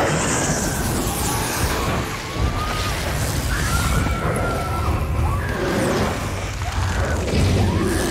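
Flamethrower firing a continuous jet of burning fuel with a dense rushing noise of flame. Over it are wavering, gliding screams from a person on fire.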